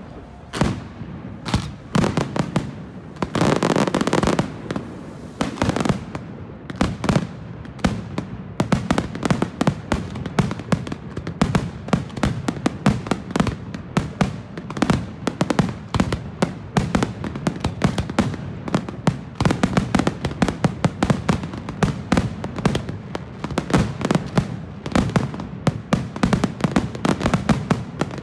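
Aerial fireworks barrage: a rapid string of shell bursts and reports, several a second, with a thicker stretch of noise about four seconds in, and an almost unbroken volley from about eight seconds in.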